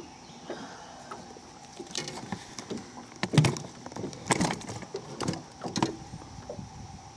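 Knocks, clicks and rattles of fishing tackle being handled in a boat, loudest about three and a half seconds in, over a steady high trill of tree frogs.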